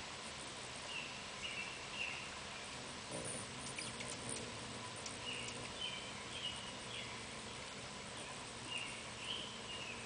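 A small bird chirping: short chirps on a level pitch in groups of two or three every few seconds, over a steady outdoor hiss.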